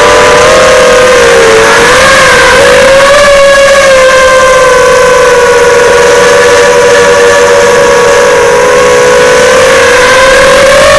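FPV quadcopter's brushless motors and propellers whining loudly as heard from the onboard camera, the pitch shifting slightly with throttle: it dips about a second and a half in and rises again near the end.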